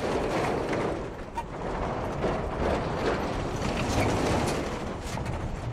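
A road train driving past close by: a steady rumble of the truck and its trailers, with many rattling knocks and clanks from the trailers throughout.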